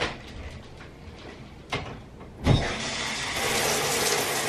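A click and a clunk at the shower fittings, then the shower comes on about two and a half seconds in: a steady hiss of water spraying in the stall.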